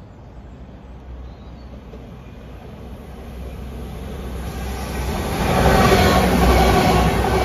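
Transport for Wales Class 197 diesel multiple unit approaching and passing through, its engines and wheels on the rails growing steadily louder and loudest near the end as it draws alongside.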